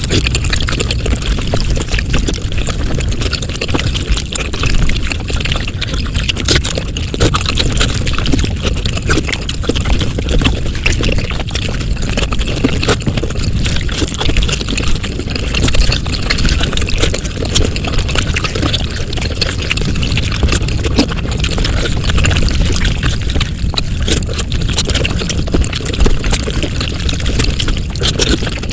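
Eating sounds from a mukbang played back at five times normal speed. Mouth and food noises run together into a dense, continuous stream of rapid clicks.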